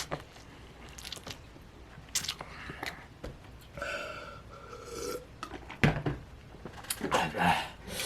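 A person eating ghost pepper instant noodles: chewing and slurping with scattered small clicks and knocks, a short pitched vocal sound about four seconds in, and heavy breaths near the end.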